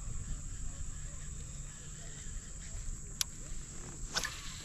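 Steady high-pitched insect trilling, like crickets or katydids, over a low rumble of wind or water. Two sharp clicks come about three and four seconds in.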